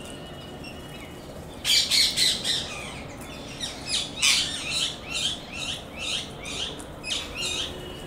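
Rose-ringed parakeets giving a rapid run of harsh, shrill squawking calls, starting about two seconds in and stopping shortly before the end, loudest in the first few calls.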